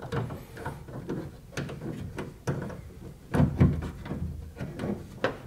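Irregular clicks and knocks of plastic retaining clips and metal linkage rods being worked inside a pickup truck door shell, as a clip is snapped over the outside door handle's rod. The loudest knocks come about three and a half seconds in.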